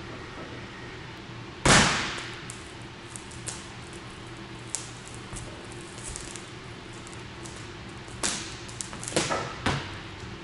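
A man's shoes landing hard on a Ferrari 488's windshield: one loud thud about two seconds in as he jumps on the glass, with faint ticks after it. Three smaller thumps near the end as he steps down off the car.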